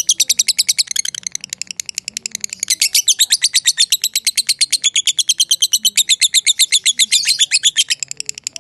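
Lovebird giving a long 'ngekek' chatter: an unbroken, rapid string of sharp, high chirps, about a dozen a second.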